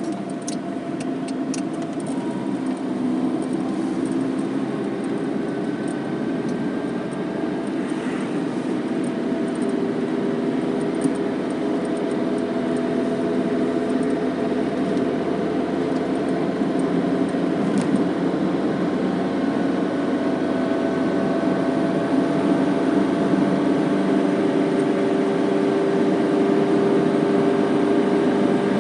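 Car driving, heard from inside the cabin: steady engine and road noise, with the engine note and loudness rising gently over the stretch.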